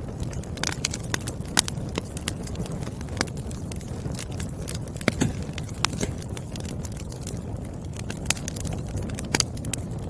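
Burning firewood crackling: irregular sharp pops and snaps over a steady low rumble of the fire.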